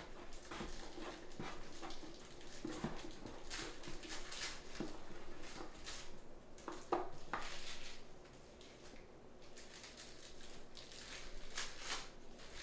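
Irregular rustling, crinkling and light clicks of trading-card packs and cards being handled and opened, with a sharper scrape or crinkle about seven seconds in.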